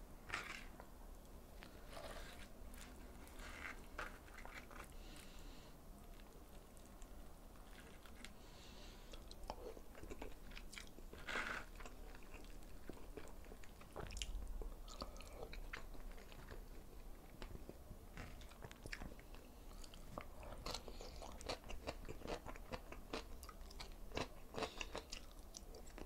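Close-miked chewing and crunching of crisp fried tilapia and rice eaten by hand, a steady run of small bites and crunches that comes thicker over the last few seconds.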